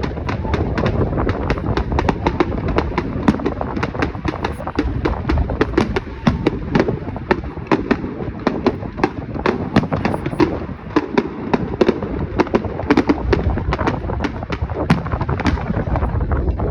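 Fireworks going off in rapid, continuous succession: dense sharp bangs and crackling pops, several a second, over a low rumble.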